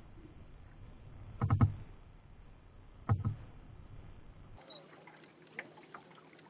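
Two short knocks on a small fishing boat, about a second and a half apart, as a freshly landed boga and the landing net are handled.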